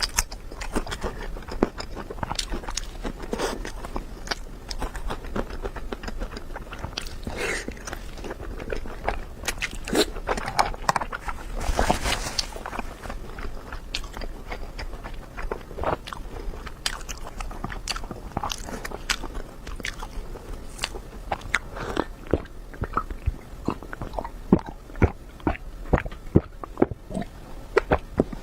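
Close-miked eating: a person biting and chewing, with irregular crunching and wet clicking, and a few sharper, louder crunches near the end.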